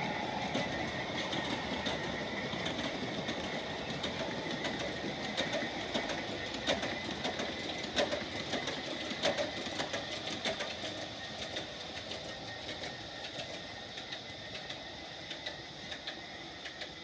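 Large-scale garden model train running along the track: a steady rolling rumble with irregular clicks of the wheels over the rail joints, growing fainter in the last few seconds.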